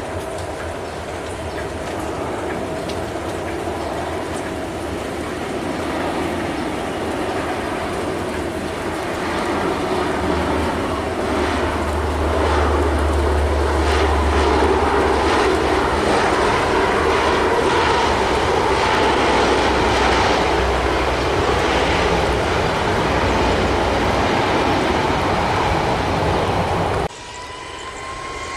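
Lockheed C-130 Hercules' four turboprop engines running as it comes in low to land and passes, growing louder toward the middle with a deep low hum. Near the end the sound cuts off suddenly, replaced by a jet airliner's engines with a rising whine.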